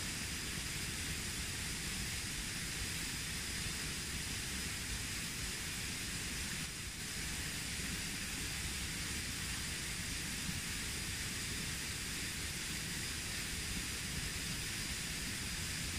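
Steady hiss of a flowing creek, with a faint high steady tone running through it.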